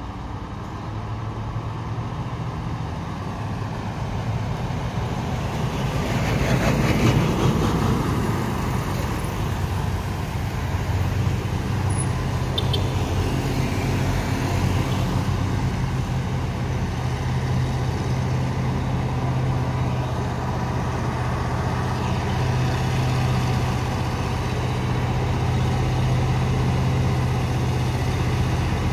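Heavy diesel trucks on a hill climb. A vehicle goes by loudest about seven seconds in, then a deep truck engine runs steadily under load and grows slowly louder as it approaches.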